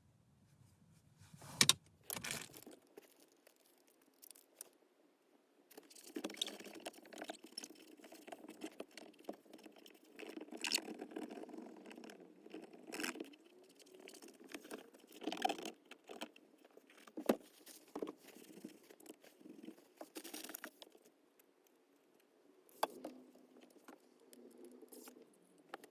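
Plastic interior trim being handled and fitted to a car's centre-console gear panel: irregular clicks, taps and sharp knocks with scraping and rustling in between, the busiest stretch in the middle.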